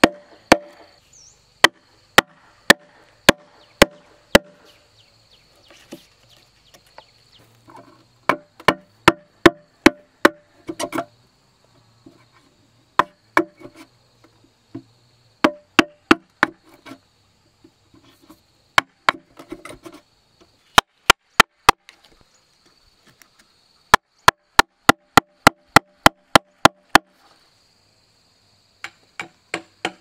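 Hammer driving a steel chisel into a hollow, rotting tree trunk, chopping out the wood to make a log beehive. The sharp strikes come in quick runs of about four a second, with short pauses between them.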